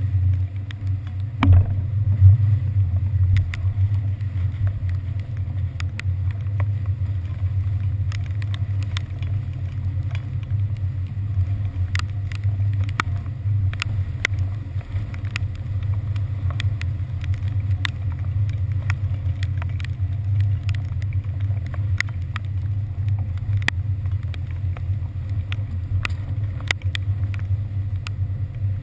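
Steady low drone of a NY Waterway passenger ferry's engines under way, with scattered light ticks throughout and a sharper knock about a second and a half in.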